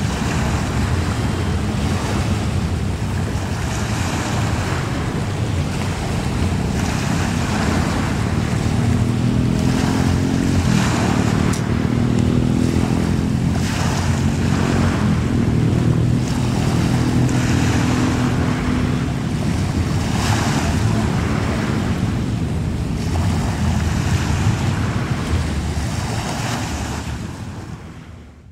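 Fast ferry Batam Fast 12 (Asean Raider 1) running at speed: a steady low engine drone whose tone swells and bends as the ferry passes, mixed with wind gusting on the microphone and the wash of waves. The sound fades out near the end.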